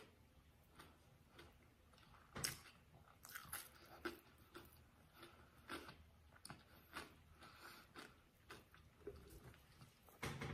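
Faint close-miked chewing with the mouth closed: soft, irregular wet clicks and small crunches from the mouth, a few every second or two.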